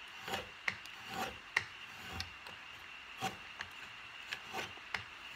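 Draw knife shaving wood off the back of a carved spoon blank: a quick run of short scraping strokes, roughly two a second.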